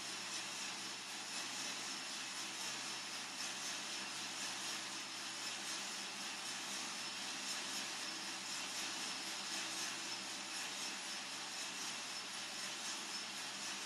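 Coffee-Tech FZ-94 lab coffee roaster running steadily late in a roast: an even hiss with a low hum underneath.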